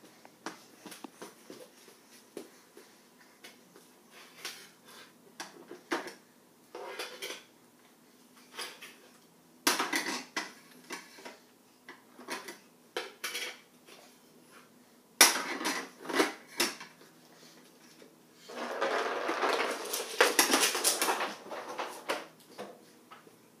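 Hard plastic toy record discs clattering and knocking on a hardwood floor and against a toy record player: irregular clacks, a few louder clusters, and a longer spell of continuous rattling near the end.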